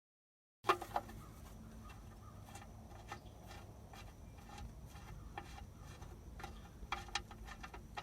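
Scattered light metallic clicks and taps of a wrench working on the oil drain plug of a 1988 Jeep Cherokee, loosening it before the oil drains, over a low steady hum. The sound begins abruptly just over half a second in.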